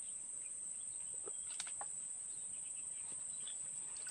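Steady high-pitched insect drone, with a few faint clicks around the middle.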